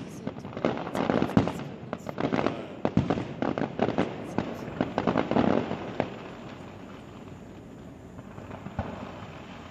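Fireworks bursting: a rapid volley of bangs and crackles for about six seconds, then it dies down, with one more bang near the end.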